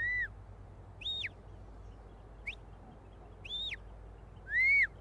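Handler's whistle commands directing a working sheepdog: five short whistles, each rising then falling, about a second apart, the last the loudest.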